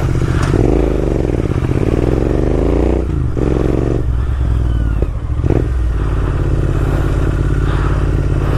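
Motorcycle engine running as the bike pulls away. Its pitch dips and rises over the first few seconds as it revs, then it settles into a steady run.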